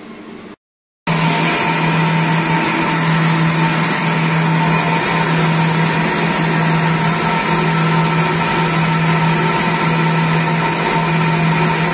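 CNC lathe boring the inside of a large steel hydraulic cylinder tube with a long boring bar under flood coolant: a steady spindle and drive hum with the hiss of coolant and the cut. It comes in loud and abruptly about a second in, after a brief dropout; before that only a quieter machine hum.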